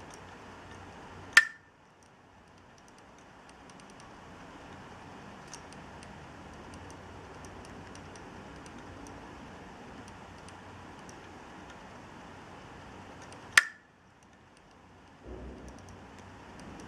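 Hard disk drive giving two sharp, loud clicks about twelve seconds apart, each followed by its steady hum dropping away and slowly building back. Faint small ticks sound in between.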